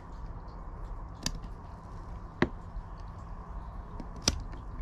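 Hot-staple plastic welder worked against a plastic trim piece: three sharp clicks, roughly a second or two apart, the last the loudest, over a faint steady low hum.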